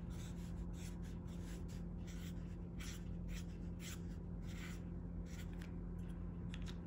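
A black pen sketching quick short strokes on sketchbook paper, an irregular scratchy stroke every fraction of a second, stopping shortly before the end. A steady low hum runs beneath.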